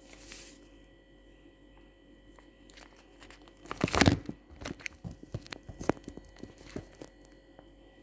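A detox drink sachet being handled and torn: crinkling, with a loud tearing crackle about four seconds in followed by a run of smaller crinkles and clicks.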